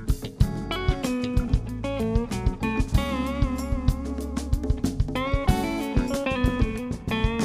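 A live rock band playing an instrumental passage: an electric guitar carries the lead with held, wavering and bent notes over bass and drums, whose hits keep a steady pulse.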